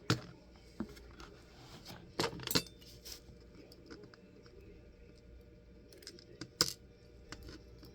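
Small metal lock parts of a cut-open pin-tumbler cylinder clicking and clinking as they are handled: a few sharp isolated taps, a short cluster about two seconds in, and a louder click near the end.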